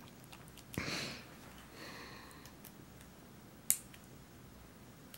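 Faint handling of a plastic action figure being posed, with a soft rustle about a second in and one sharp click a little after three and a half seconds.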